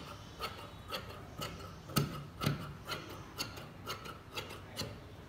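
Dressmaker's shears cutting through cloth, the blades closing with a sharp snip about twice a second.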